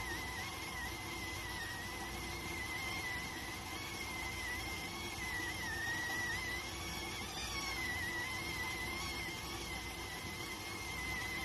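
Electric rice cooker's steam whistle sounding continuously: one steady, high whistle that wavers slightly in pitch, over a soft hiss of steam.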